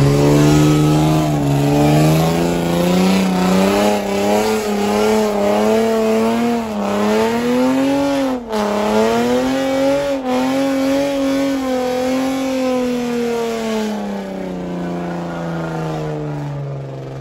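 Car engine held at high revs while the car spins donuts, its pitch wavering up and down, with tyre noise beneath it. The revs dip briefly twice in the middle and ease down over the last few seconds.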